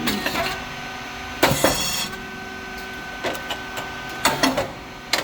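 Rice cake popping machine (SYP5804T, titanium-coated moulds) running its cycle: a steady mechanical hum under sharp clacks and knocks from the moulds and cylinder. The loudest is a hard bang with a short hiss about one and a half seconds in; smaller clacks follow at about three and four seconds.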